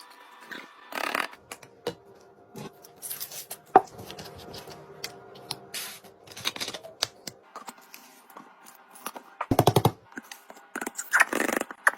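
Hands restocking a fridge: packaged items and plastic containers being handled and set in place, with irregular clicks, crinkling and scraping, a sharp knock about four seconds in and a quick rattle near the end.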